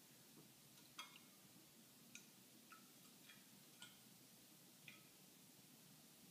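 A kakariki bathing in a shallow glass bowl of water: faint, sparse little splashes and drip-like plinks, about six at irregular intervals, as it dips and flicks water.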